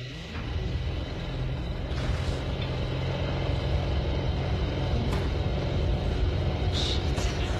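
A low, steady rumble, like a heavy engine, that swells over the first couple of seconds and then holds, with a few faint clicks near the end.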